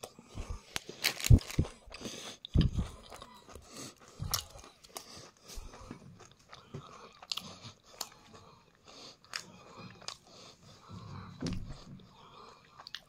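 Close-up biting and chewing of a fried banana-flower and grated-coconut chop, its crisp crust crunching in irregular bites, loudest in the first three seconds.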